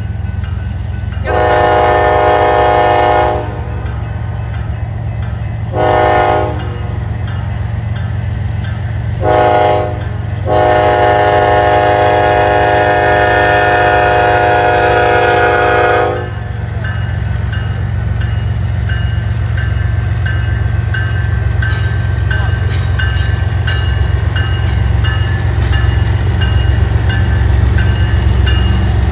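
BNSF diesel freight locomotives sounding their air horn for a grade crossing: a long blast, two short ones, then a long held blast ending about sixteen seconds in, over the low rumble of the approaching engines. In the second half the locomotives pass close by with the wheels clicking on the rails, while a crossing bell dings steadily.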